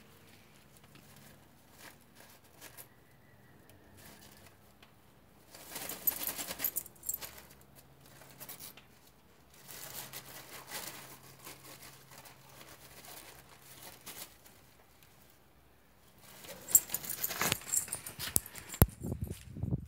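Dachshund tugging and digging at a bag-wrapped parcel on soil: several bursts of crinkling and scratching with quiet pauses between.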